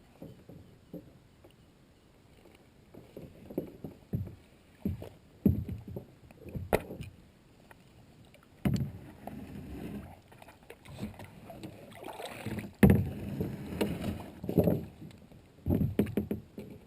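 Kayak being paddled: irregular swishes and sloshes of water around the hull, with a couple of sharp knocks against the boat.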